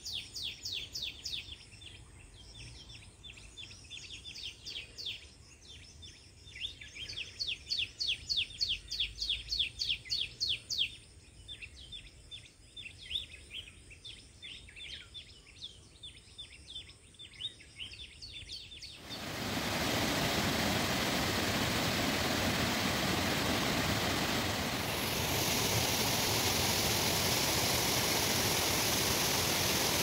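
Birds chirping in quick runs of short, high notes. About two-thirds of the way through, this gives way abruptly to a loud, steady rush of falling water from a waterfall, which grows a little brighter near the end.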